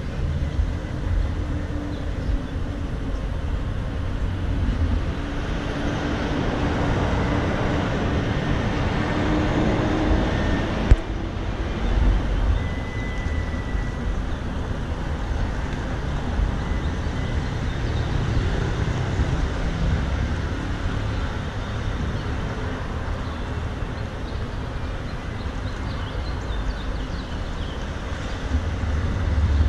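City street traffic: a steady rumble of engines and tyres, with one vehicle passing close and louder about a third of the way in, then a single sharp click.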